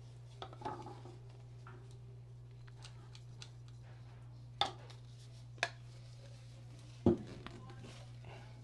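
Hard objects knocking and clinking as they are handled: a few faint taps near the start, then three sharp knocks about a second apart, the last the loudest, over a steady low hum.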